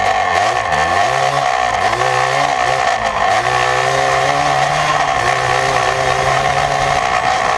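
Yamaha Blaster's 195 cc two-stroke single-cylinder engine with an FMF Fatty expansion pipe and Power Core 2 silencer, running under throttle while riding. The revs rise and fall several times in the first few seconds, then hold fairly steady and ease off near the end.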